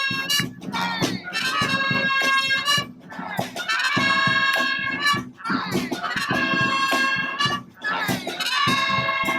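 Street brass band playing live, horns holding long notes in phrases of about two seconds, each broken by a short gap.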